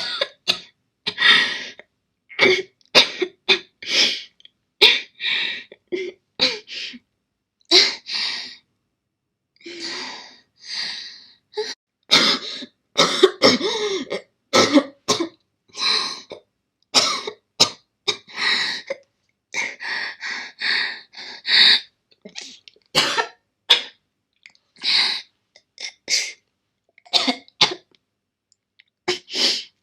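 A girl coughing hard in a long, repeated fit: many short, sharp coughs in quick clusters, broken by a couple of brief pauses.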